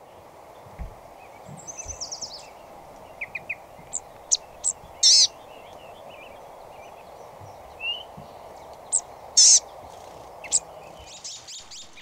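Small songbirds calling over a steady background noise. There is a short high trill about two seconds in and scattered short chirps, with two louder high calls about five and nine and a half seconds in.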